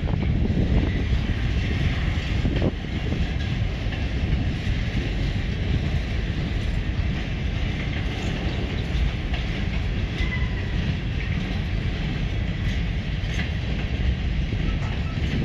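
Freight cars (boxcars, centerbeam flatcars and gondolas) rolling past: a steady rumble of steel wheels on the rails.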